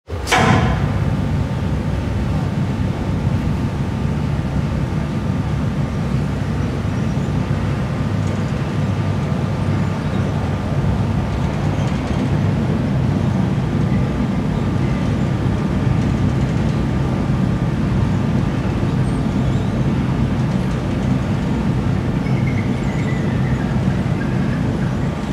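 Steady low industrial rumble of factory machinery, with a faint high steady tone above it.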